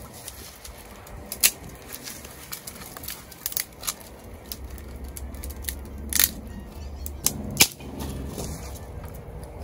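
Dry sticks snapping and cracking by hand while kindling is broken up and laid for a campfire, in single sharp cracks every second or so, the loudest about six and seven and a half seconds in, with rustling of twigs between them.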